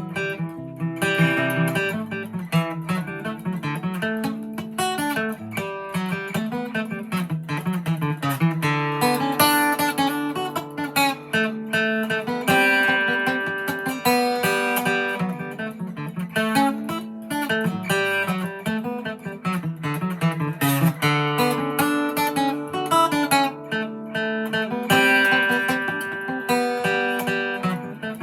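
A 2002 Gibson J-45 acoustic guitar playing a fiddle tune in D, a continuous run of picked melody notes mixed with strummed chords.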